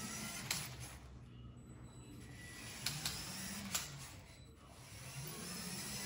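Motorized LEGO Technic Bugatti Chiron driving: its LEGO L motor and plastic gear train whir and rattle, the pitch rising and falling several times as it speeds up and slows, with a few sharp clicks.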